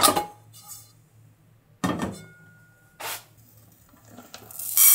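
Metal inner pot of an electric rice cooker lifted out and set down in a stainless-steel sink, giving three clunks. Near the end comes a loud rush of dry rice grains poured into the pot.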